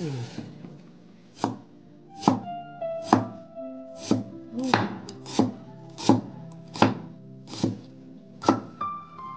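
Knife chopping food on a cutting board, about a dozen single strokes a little under a second apart and slightly uneven, over background music with sustained notes.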